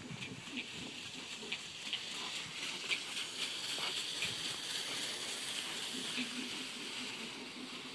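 Miniature horse trotting while pulling a two-wheeled training cart over gravel: a steady crunching hiss from wheels and hooves on the stones, with many small crackles and clicks.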